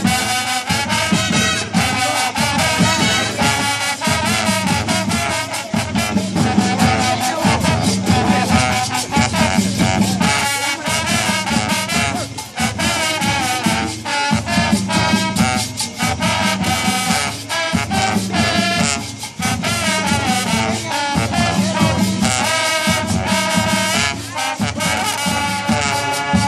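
School marching band playing a lively tune: brass horns and a sousaphone over a steady, driving drum beat.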